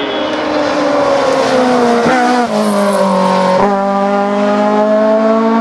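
Rally car engine at speed: its revs fall as it slows for a corner, with two brief sharp cracks about two and three and a half seconds in, then climb steadily as it accelerates away.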